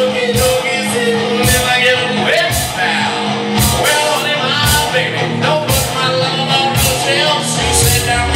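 Live rock band playing: a male singer over electric guitars, bass guitar and a drum kit keeping a beat.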